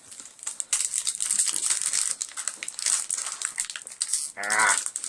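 Foil wrapper of a Pokémon booster pack crinkling and crackling as it is handled and pulled at to open it, a pack that is hard to open. A short vocal sound near the end.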